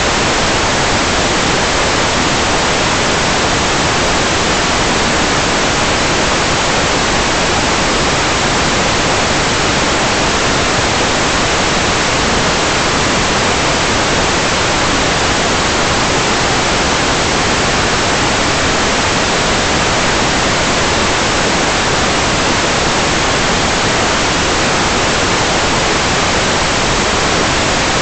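Loud, steady static hiss that does not change.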